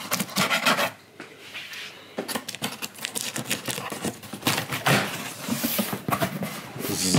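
A knife slitting packing tape along a cardboard box, then the cardboard flaps scraping and being pulled open, heard as a run of short scrapes and rustles.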